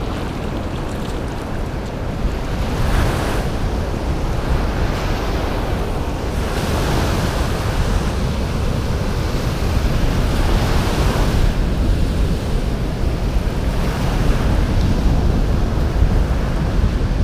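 Surf washing up a sandy beach, with wind buffeting the microphone. The hiss of the wash swells about three seconds in and again for several seconds midway.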